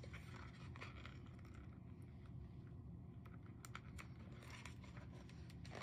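Near silence: steady low room hum with a few faint, scattered clicks.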